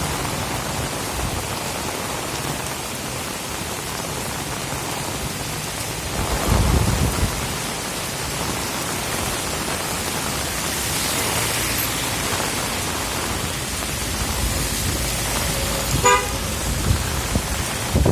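Heavy rain falling steadily, with gusts of wind buffeting the microphone about six seconds in and again near the end. A short pitched toot, like a vehicle horn, sounds once about sixteen seconds in.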